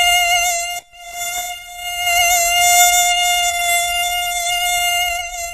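Mosquito whine: a steady, high-pitched buzz of wingbeats that breaks off briefly a little under a second in and then carries on.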